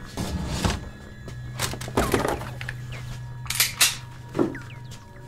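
Handling noises as a pistol is grabbed and raised: a string of thunks and rustles, with two sharp clicks about three and a half seconds in, over a low steady hum.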